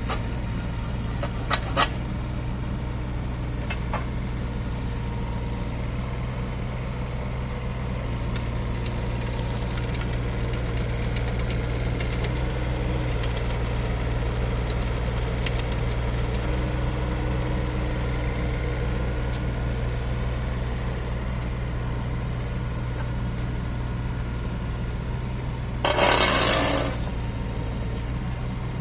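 Bobcat E08 mini-excavator's diesel engine running steadily, with a couple of sharp clicks about a second and a half in and a short, loud hiss near the end.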